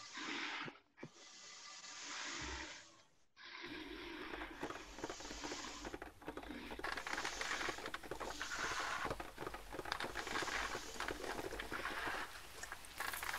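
Rustling and scraping of household objects handled close to laptop microphones: pages riffled and a rough textured sheet rubbed by hand, layered into a dense crackling patter. It starts thin and broken, then thickens after about three and a half seconds as more sources join.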